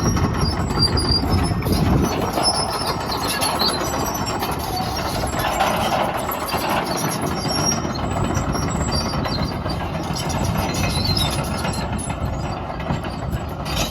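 Komatsu PC210LC-11 hydraulic track excavator at work: its diesel engine running steadily under load, with hydraulic and metal-on-metal clanking and short high squeaks throughout.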